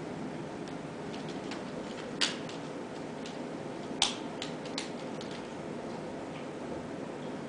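Ragdoll kittens playing at a woven wicker vase on a wooden floor: a few sharp clicks and light knocks from paws and claws on the wicker and boards, with two louder ones about two and four seconds in. A steady low hum sits underneath.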